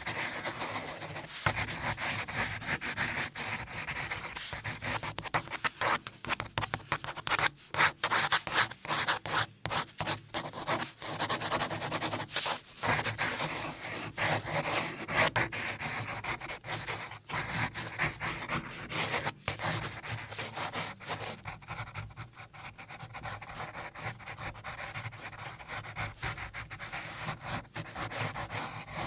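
Continuous rubbing and scratching noise, dense with small clicks, growing a little quieter in the last third.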